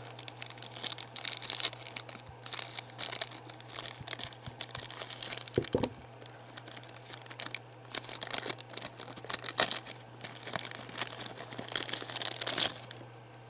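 Thin clear plastic bag crinkling and rustling in the hands in irregular bursts as a prepainted plastic miniature is worked out of it; the crinkling stops shortly before the end.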